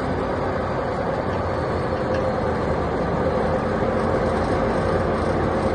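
Bandit 1590 wood chipper's engine running steadily at a constant speed.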